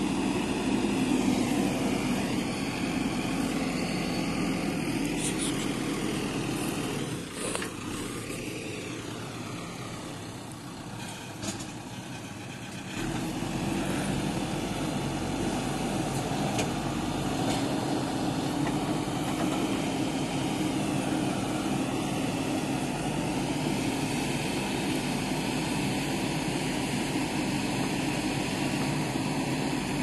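JCB 3DX backhoe loader's diesel engine running steadily as the backhoe digs into a soil pile. The engine note drops quieter for about six seconds partway through, with one brief knock in that lull, then comes back up to its steady running sound.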